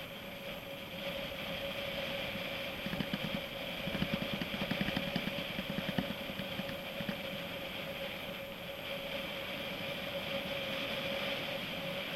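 Mountain bike being ridden over a rough surface: steady rolling noise with a stretch of rapid, irregular rattling about three to seven seconds in.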